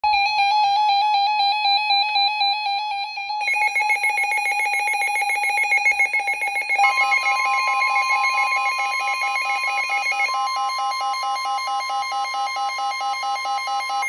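Several NOAA weather alert radios sounding their alarms together for a received flash flood warning: rapid beeping at different pitches, with a second radio joining a few seconds in and a steady tone added about halfway through.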